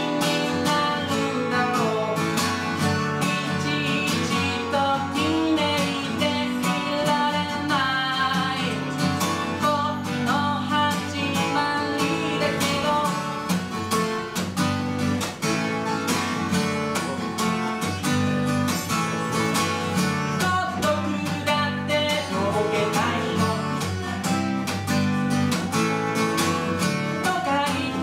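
Acoustic guitar played live, strummed steadily, with a man singing along.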